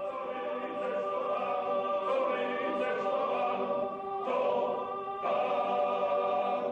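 Choral background music: voices holding long, sustained chords, with a shift to a new chord about four to five seconds in.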